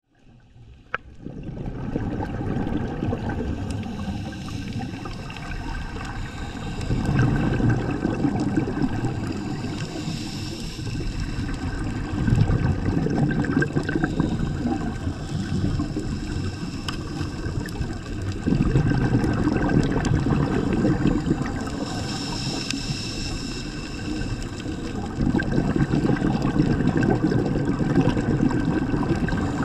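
Scuba diver's breathing heard underwater: a low gush of exhaled bubbles from the regulator about every six seconds, each lasting a few seconds, with a brief hiss of inhalation between them.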